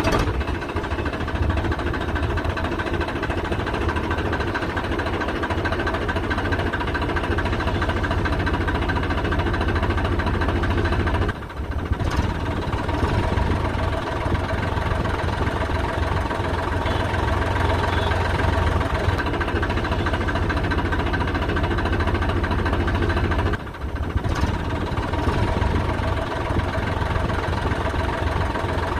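A tractor engine idling steadily. It cuts out briefly twice, about 11 and 24 seconds in.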